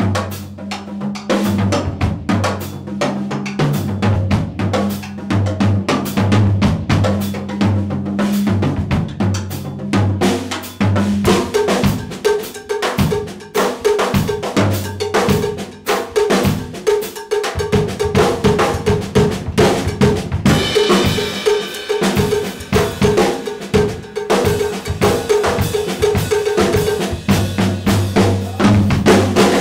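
Drum kit played solo in an Afro-Cuban-influenced groove: rapid interlocking strokes on toms, snare and bass drum, with low tom tones prominent at the start and again near the end. A cymbal wash comes in about two-thirds of the way through, and the playing stops abruptly at the very end.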